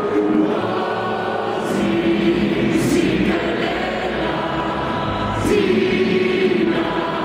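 A choir singing a national anthem in slow, long held notes.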